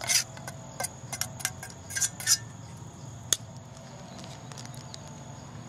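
A metal spoon clinking and scraping against a camp frying pan and pot as fried meat is scooped out: about eight quick taps and scrapes over the first two and a half seconds, and one last clink a little after three seconds.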